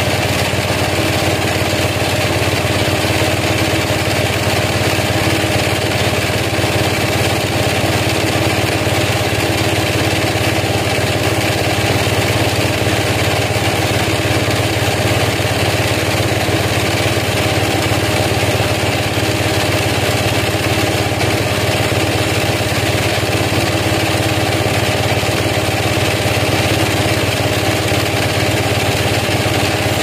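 A band sawmill running steadily, its blade cutting lengthwise through a large log: a constant, unbroken machine drone with a hiss of sawing over it.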